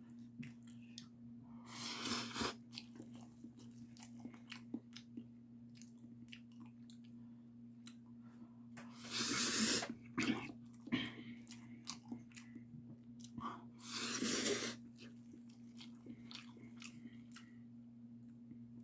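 Close-miked eating of bibim-myeon, cold spicy mixed noodles: three long noodle slurps, about two, nine and fourteen seconds in, with wet chewing and small mouth clicks between them. A steady low hum runs underneath.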